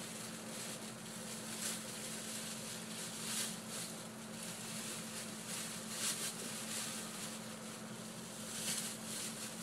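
Steady low electrical hum over a constant background hiss, with a few soft brief noises at irregular moments.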